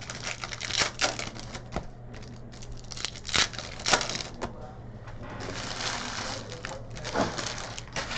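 Trading cards and their packaging being handled on a table: an irregular run of sharp clicks and snaps, with a stretch of rustling about five and a half seconds in.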